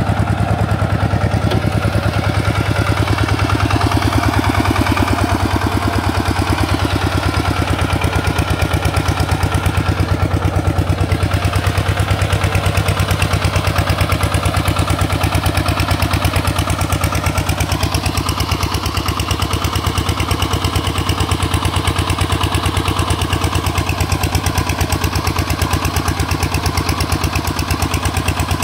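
Tractor engine running steadily with a fast, even beat.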